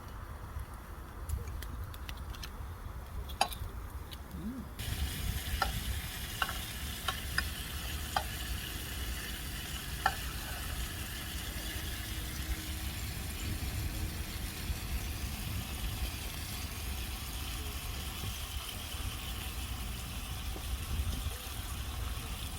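Food sizzling in a hot pan on a camp stove, a steady hiss that starts suddenly about five seconds in, with a few sharp clicks of utensils against the pan.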